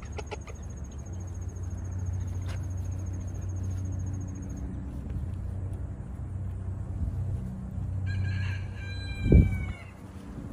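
Young Ameraucana chickens feeding at a watermelon, with pecking clicks over a steady low rumble. About eight seconds in, one chicken gives a drawn-out call about two seconds long that drops in pitch at its end, and a loud low thump comes in the middle of it.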